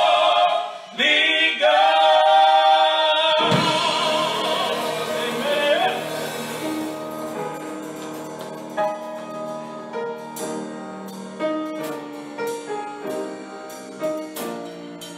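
Live gospel singing with piano accompaniment: the voices hold long sung notes that die away about six seconds in, leaving the piano playing chords.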